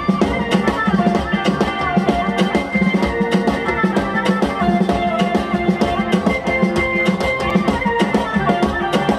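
Live band playing through a concert PA: a drum kit keeps a steady beat under amplified electric guitar and keyboard.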